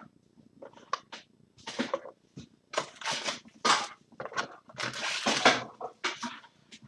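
Trading-card box packaging rustling and crinkling as it is handled, in a quick run of short scratchy bursts.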